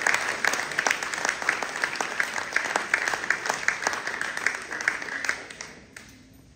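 Audience applauding, with many sharp individual claps, dying away near the end.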